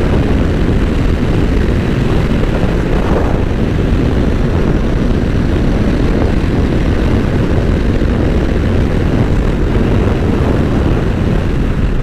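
Steady rush of wind buffeting the microphone, over the running engine and tyres of a Honda NC750X parallel-twin motorcycle cruising at an even highway speed.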